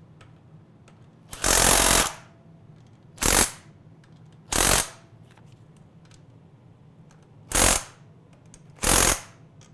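Cordless impact driver run in five short bursts, tightening the bolts that lock down the rear axle shafts of a snowmobile suspension skid. The first burst is the longest; the others are brief, with pauses between them.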